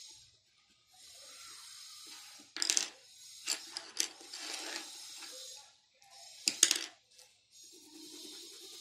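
Graphite pencil shading on paper: stretches of dry scratching strokes with short pauses between them. Several sharp clicks or knocks come about a third of the way in and again past the middle, the loudest sounds here.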